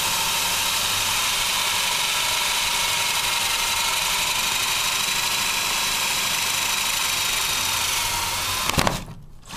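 Power drill running steadily with a faint whine as a 1-inch bit cuts through the plastic wall of an Otterbox 3250 case. The drill stops near the end.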